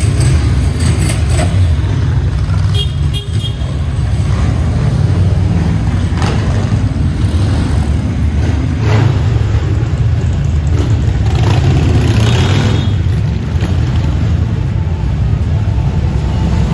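A procession of motorcycles riding slowly past one after another, their engines running with a continuous low-pitched rumble.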